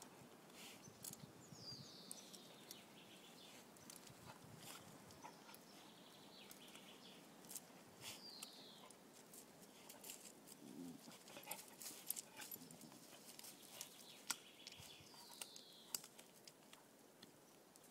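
Quiet scattered snaps and rustles of ivy and vine stems as a dog bites and tugs at them on a tree trunk.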